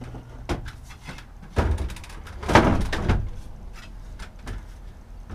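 Slatted wooden bed platform being set down and settled into place: a series of wooden knocks and thumps, the loudest a cluster about two and a half seconds in.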